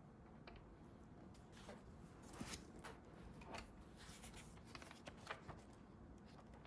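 Faint pen scratching on paper in short irregular strokes.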